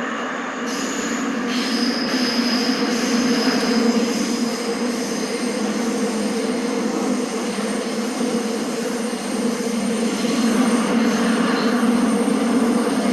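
Seoul Subway Line 7 train running between stations, heard from inside the car: a steady rumbling run with a thin high tone that sets in about a second and a half in, the whole noise slowly growing louder as the train gathers speed.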